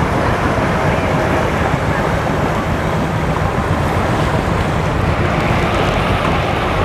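Wind buffeting the microphone with steady rumbling noise, over the wash of water and boats on the water.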